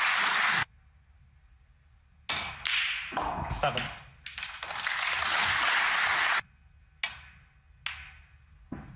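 Audience applause in stretches that start and stop abruptly, then near the end a few sharp clicks of snooker balls being struck.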